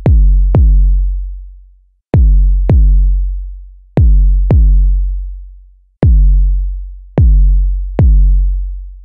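Synthesized sub kick drum from Maschine's internal Kick drum synth, run through the classic saturator set to a low drive and high input, struck nine times in loose pairs. Each hit is a sharp click followed by a long, deep sub tone with a stack of distortion overtones, fading over a second or two.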